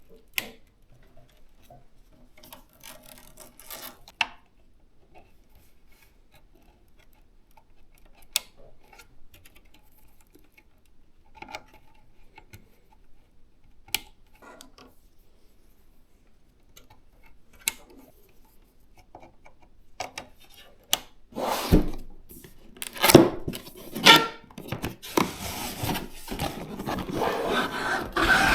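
PC components being handled during assembly: a few sharp clicks of plastic and metal parts every few seconds, then from about 21 seconds in a louder stretch of rubbing and scraping.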